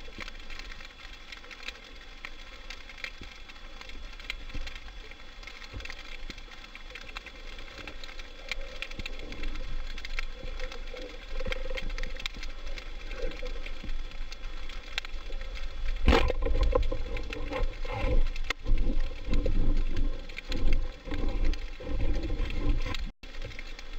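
Band-powered speargun fired underwater about two-thirds of the way in: one sharp crack, followed by several seconds of loud irregular knocks and rumbling. A steady underwater crackle runs underneath throughout.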